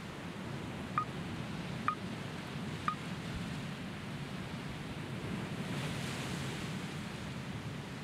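Ocean surf washing steadily against a rocky shore, with three short chirps from a small bird, about a second apart, in the first few seconds.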